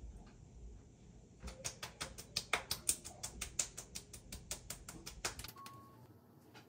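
Fingertips patting the skin of the face, quick light pats several a second, starting about a second and a half in and stopping about four seconds later.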